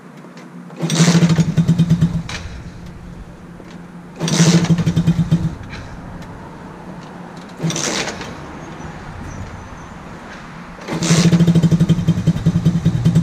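Freshly rebuilt 110cc four-stroke pocket bike engine being started without choke: it fires and runs for a second or so, then dies, three times, the third only briefly. About eleven seconds in it catches again and keeps running, struggling to hold idle without choke.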